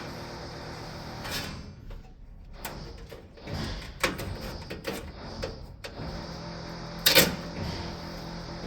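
Air-conditioning unit's filter and cover being handled: scattered clicks and rattles, then one sharp snap a little after seven seconds, over the unit's steady fan hum, which drops out briefly about two seconds in.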